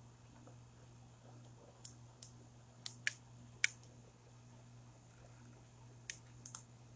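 Caulk gun clicking as its trigger is squeezed to push out clear silicone: about eight sharp clicks, a cluster near the middle and a few more near the end.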